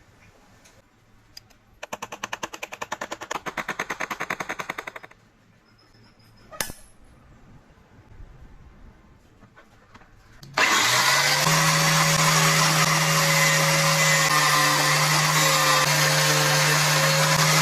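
Rapid mechanical clicking, about ten clicks a second for about three seconds, then a single click. About ten seconds in, a power tool switches on, spins up and runs steadily with a loud hum and whine.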